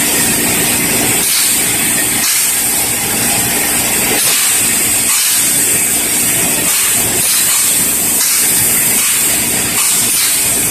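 Paint spray gun hissing loudly and continuously, with the low hum of machinery running underneath; the hiss briefly changes every second or few.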